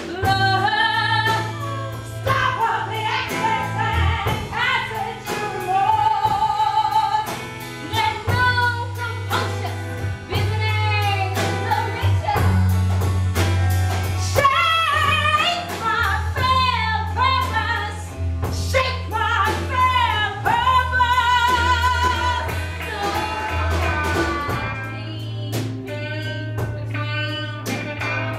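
A woman singing with wide vibrato over a live band: long held low bass notes and a steady run of drum hits.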